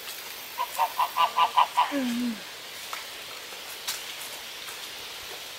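Hen clucking: a quick run of about eight short calls, followed by a lower falling note.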